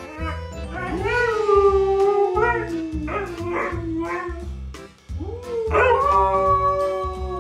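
Siberian husky howling: two long drawn-out howls, the second one rising in about two-thirds of the way through and held, over background music with a steady beat.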